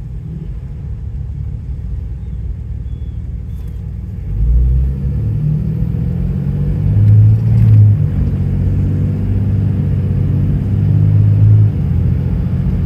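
Cummins inline-six turbo-diesel in a Dodge Ram pickup, heard from inside the cab, running low and steady, then pulling away under throttle from about four seconds in. The engine note climbs and drops suddenly twice, near eight and near twelve seconds, as the Allison automatic upshifts firmly at about 2,000 RPM.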